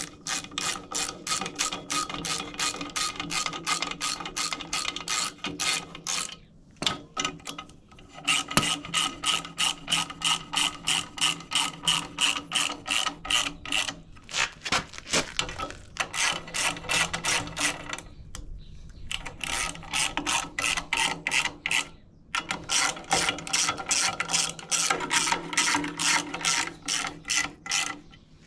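Hand socket ratchet clicking in quick runs of about four clicks a second, stopping and starting several times as bolts are run down snug before torquing.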